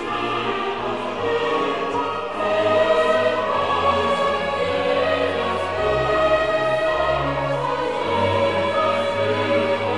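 Classical choral music: a choir singing long held notes with an orchestra.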